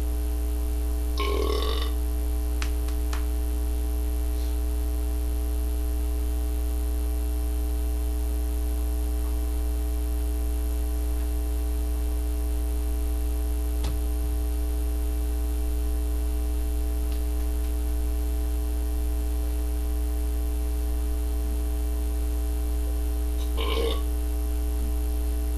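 Two short burps from a person, one about a second in and one near the end, with a long gap between them. A loud steady low hum runs underneath.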